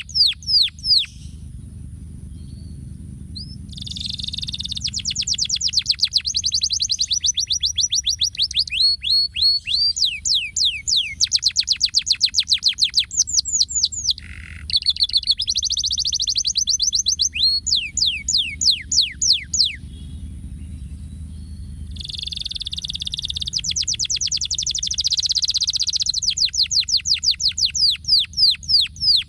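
Canary singing: long phrases of fast trills made of rapidly repeated downward-sweeping notes, broken by a few short pauses.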